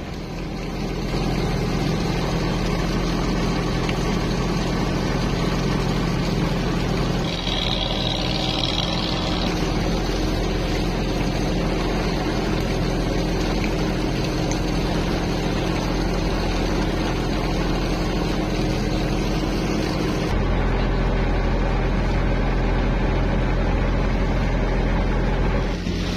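A tour boat's engine running steadily, heard from on board, with a deeper low rumble in the last few seconds.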